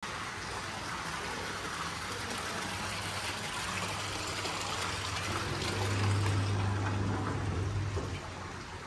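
Running water flowing steadily, a little louder from about six seconds in.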